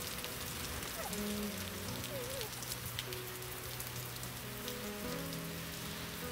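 Steady rain falling, with soft film-score music of long held notes underneath.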